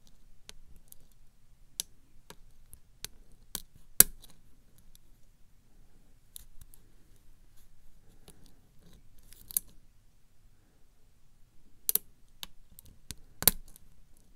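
Irregular sharp metal clicks of a hook pick working the pin stacks of a brass euro-profile cylinder lock held under tension, single-pin picking. The clicks come singly and in small clusters, the sharpest about four seconds in.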